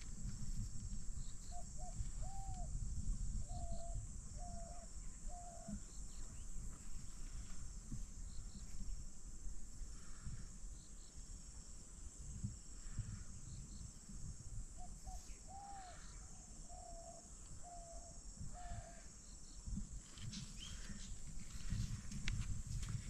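Riverside ambience: a steady high insect drone, with a bird calling twice in phrases of five or six short, low notes about ten seconds apart, over a low fluctuating rumble.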